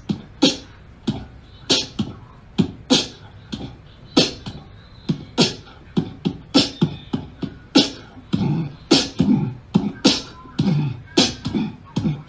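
A frightened white cat hissing and spitting in short, sharp bursts, about two a second.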